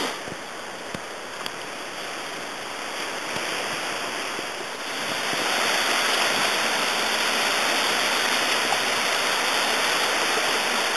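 Small waves breaking and washing up a flat sandy beach: a steady hiss of surf that grows louder about five seconds in.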